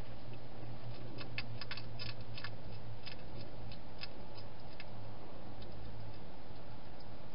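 Wild hedgehog chewing food: a quick run of sharp, irregular clicks starting about a second in and thinning out after about five seconds, over a steady low hum.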